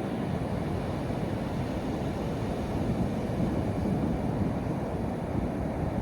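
Sea waves washing onto a beach: a steady low wash of surf that swells a little around the middle.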